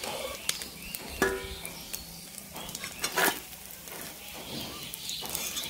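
Small fish sizzling as they fry in hot oil in a pan, with a spatula scraping and clinking against the pan a few times as the fried fish are turned and lifted out.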